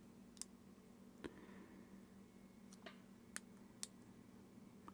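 About five faint, sharp clicks over near silence: small plastic and metal watch parts being handled as the module is pressed into its case.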